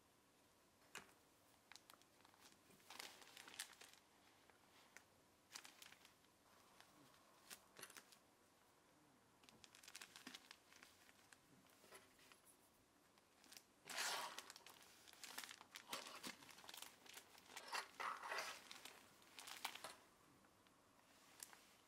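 Faint rustling and crinkling of cloth handled by hand, in scattered short bursts that grow busier and louder in the second half.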